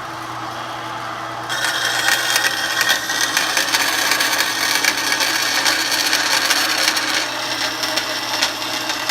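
Band saw running, its blade cutting into a workpiece: a steady motor hum, with a loud high-pitched cutting whine that starts about a second and a half in and eases off near the end as the cut slows.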